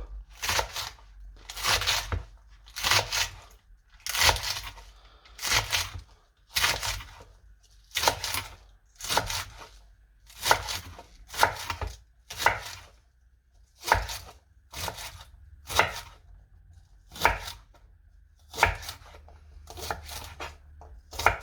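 A kitchen knife roughly chopping spring onions, with a steady run of sharp chops about once a second.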